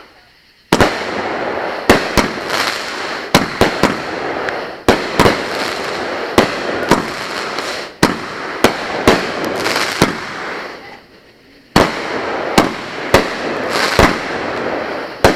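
A 'Born to Ride' multi-shot consumer firework cake firing: about twenty sharp bangs at uneven spacing, with a continuous hissing noise between them and a short lull about eleven seconds in.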